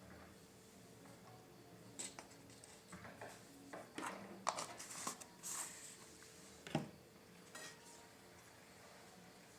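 Kitchen utensils and dishes being handled: a scattered run of small clinks and knocks, the loudest about halfway through and another sharp knock a little later, over a faint steady hum.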